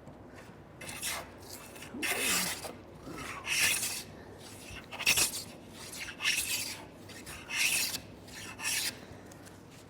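Jack plane cutting a bevel along a wooden door's edge: about eight separate rasping strokes, roughly one a second, with short pauses between them.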